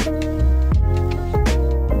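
Background music with a steady beat: a strike about every three quarters of a second over held bass notes and chords.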